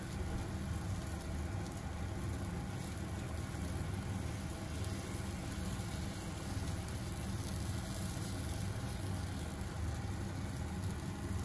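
Steady low rumble of gas burner flames heating a takoyaki griddle, with no change in level throughout.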